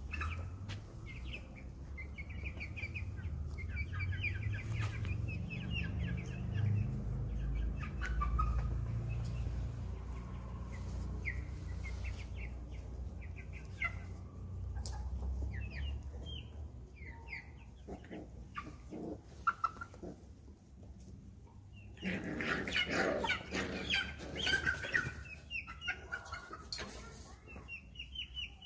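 Chickens clucking and chirping in short calls, with a louder burst of calls about two-thirds of the way through. A low rumble runs underneath in the first half.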